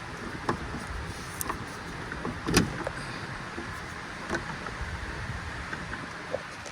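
Scattered clicks and light knocks of hoses and engine intake parts being handled, over a steady background hiss; the loudest knock comes about two and a half seconds in.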